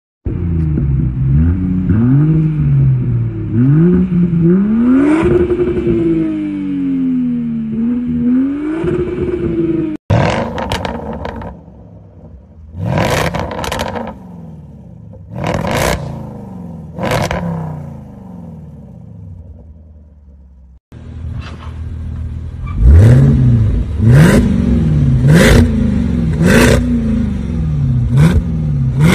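Land Rover Defender V8 revved repeatedly while standing still through an aftermarket exhaust, the note rising and falling with each blip of the throttle. Sharp cracks from the exhaust follow many of the revs in the second half. Around ten and twenty-one seconds in, the sound cuts out for a moment and starts again.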